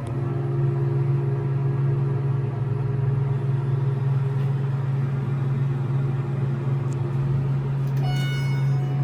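Hydraulic elevator running: a steady low hum with rumble, stepping up in level at the start, with a brief electronic tone sounding near the end.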